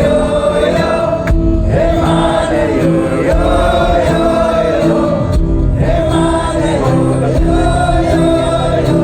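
Live band music with singing: long held notes that glide and waver, over a steady instrumental backing.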